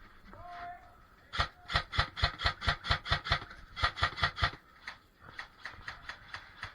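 Krytac Mk2 SPR airsoft electric rifle firing rapid single shots, about six a second: a string of about two seconds, a short pause, then a shorter string, with fainter shots after.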